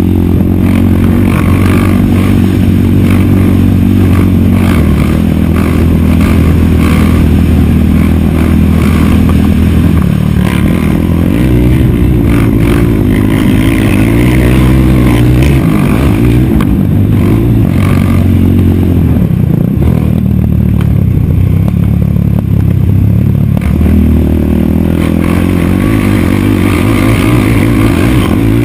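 Racing quad's single-cylinder four-stroke engine under hard throttle, its pitch climbing and dropping as the throttle opens and closes around the track, with clatter from the machine over the rough dirt.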